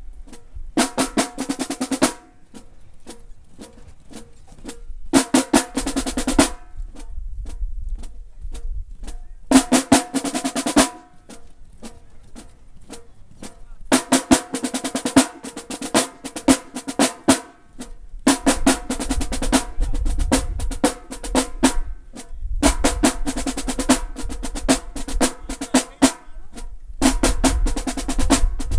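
Marching band drumline playing a cadence: repeated bursts of fast snare strokes and rolls with bass drums underneath, and sparse single taps in the gaps between bursts.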